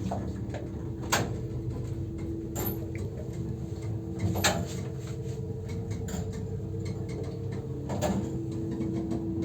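MLZ passenger lift with an AS-72 electric drive motor running: a steady hum with occasional sharp clicks and knocks.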